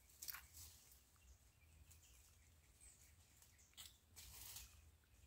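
Near silence, broken by a few faint, short mouth sounds of biting and sucking a star apple, once just after the start and again about four seconds in.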